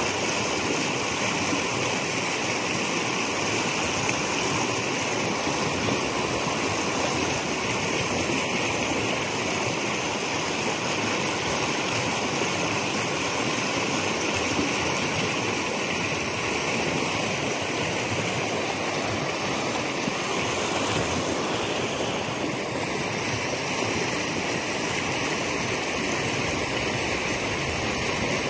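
Shallow creek running over a stony bed: a steady rushing and gurgling of water.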